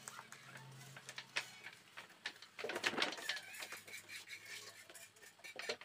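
Rice being tipped and scraped by hand out of a steel bowl into a large metal cooking pot of water, with scattered light clicks of grains and metal and a louder rush of rice about halfway through.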